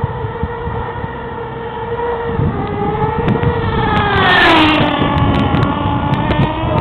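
Small nitro-fuelled engine of a radio-controlled car running at a high-pitched whine. It gets louder about four seconds in as its pitch drops.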